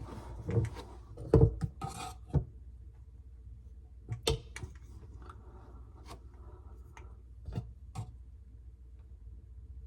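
Tools and parts being handled at close range: a cluster of sharp clicks and knocks with some rubbing in the first couple of seconds, then a few scattered single clicks.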